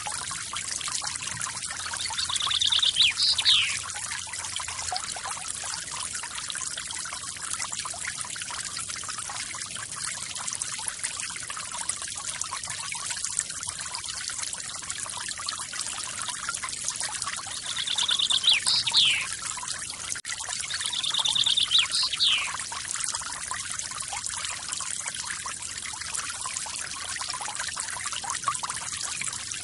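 Waterfall splashing with a steady hiss of falling water. A songbird sings three times over it, each song a quick trill ending in a falling note; the songs are the loudest moments.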